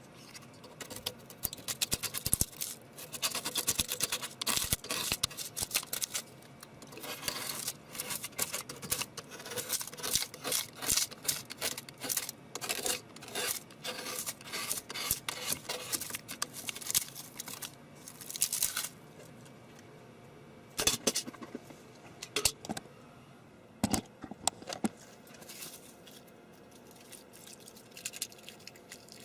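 Hard plastic parts being handled: rapid clicking, scraping and rattling in dense bursts, thinning to a few separate clicks near the end.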